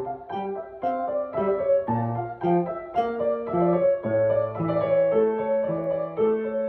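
Upright piano played with both hands: a slow, even melody over sustained bass notes, a few notes a second, each note ringing on into the next.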